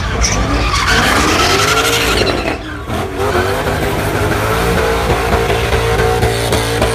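Car tyres squealing as a car spins donuts, with the engine revving hard. The squeal wavers up and down in pitch at first, then settles into a steady tone about halfway through, broken by regular short gaps.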